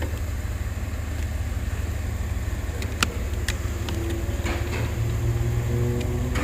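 Lexus IS250's 2.5-litre V6 idling steadily, freshly restarted and running again after a crank-no-start fault. A few sharp clicks are heard about three seconds in.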